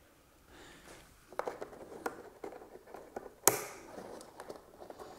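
Small clicks and taps of hands working on a plastic RC crawler in its cardboard tray, with one sharp snap about three and a half seconds in: side cutters snipping a zip tie that holds the truck to the tray.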